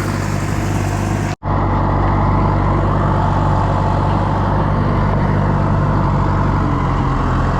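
Farm tractor engine running steadily. The sound cuts out for an instant about a second in and resumes.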